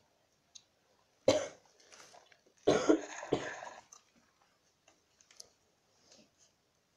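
A person coughing: one harsh cough about a second in, then two more in quick succession.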